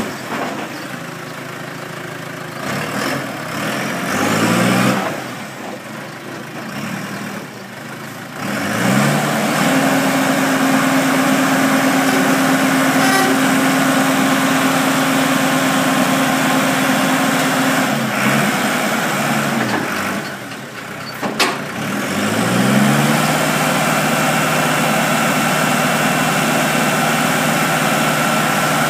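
Gehl RS5-34 telehandler's diesel engine running, revving up several times and holding high revs for stretches of about ten seconds, dropping back in between, as the machine drives and raises its boom. A faint steady whine rides over the engine near the end.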